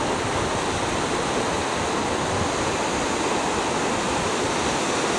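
Steady wash of ocean surf breaking and running up a sandy beach, a continuous rushing noise.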